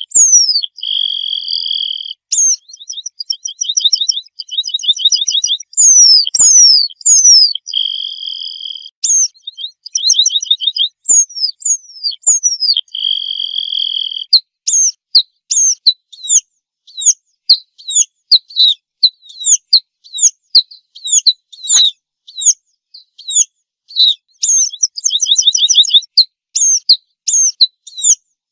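Red-throated pipit singing: high, thin falling notes mixed with rapid trills and three long buzzy notes. From about halfway through, it gives a fast run of short falling notes, several a second.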